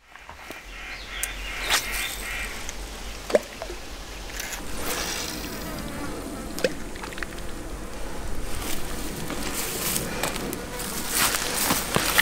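Insects buzzing over a steady outdoor hiss and low rumble, with scattered sharp clicks and ticks that come thicker near the end.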